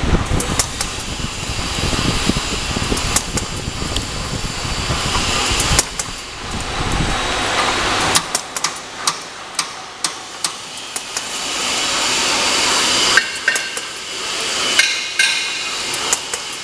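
Pull-up diaper making machine running: a steady mechanical hum and hiss, with a heavier low rumble in the first half that drops away around the middle. From about eight seconds in come sharp, regular clicks, roughly two a second.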